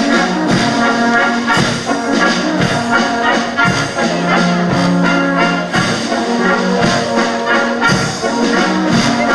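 Brass band playing a waltz, brass instruments holding sustained melody notes over low tuba notes.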